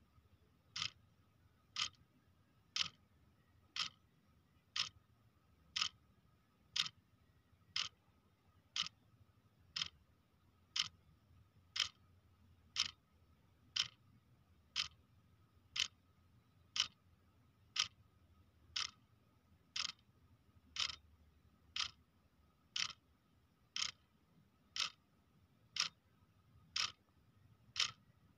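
A clock ticking steadily, one sharp tick about every second, over a faint steady high tone.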